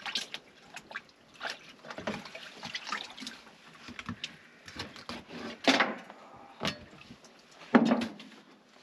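Water lapping and splashing in small, irregular slaps and drips, with a few louder splashes.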